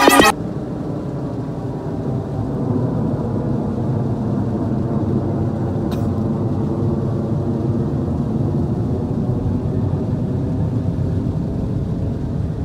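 Music cuts off abruptly right at the start, leaving a steady low rumbling drone, with a single faint tick about halfway through.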